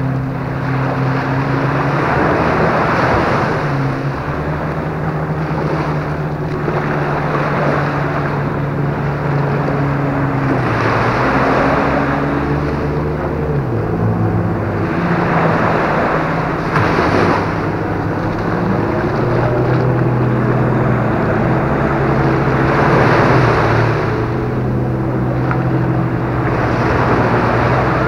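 Small waves breaking and washing up a sandy beach, swelling every few seconds, over the steady drone of a motorboat engine whose pitch shifts a few times.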